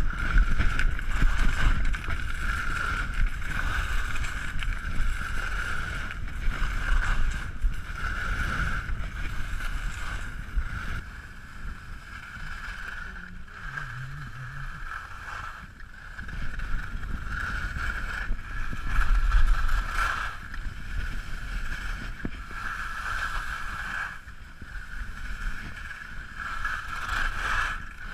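Skis sliding and scraping over firm, packed snow, a continuous hiss that swells and fades with the turns, with wind buffeting the microphone. It drops lower for a few seconds about halfway through.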